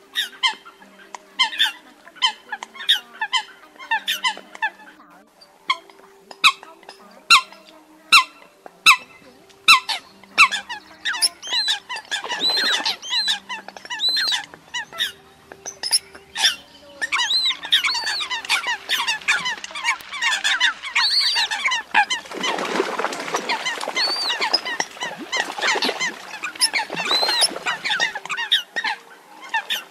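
Eurasian coots calling: a run of sharp, high, repeated calls, building after about twelve seconds into a dense chorus of many birds calling over one another. A faint soft tune of held notes plays underneath.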